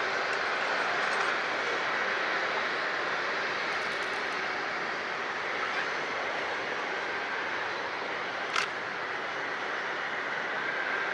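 Steady rushing hum of jet aircraft engines running, with one sharp click about eight and a half seconds in.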